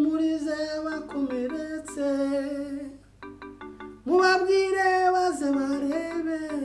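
A voice singing a slow melody in long held notes, with a few short clipped notes in a brief gap about three seconds in; the loudest phrase begins about four seconds in.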